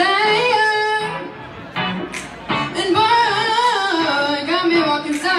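A young woman singing solo into a microphone. One short phrase ends about a second in, and after a pause a longer phrase with a wavering, ornamented melody begins.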